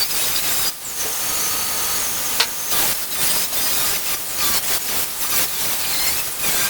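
A workshop power tool abrading metal: a steady hissing rasp with a few brief dips.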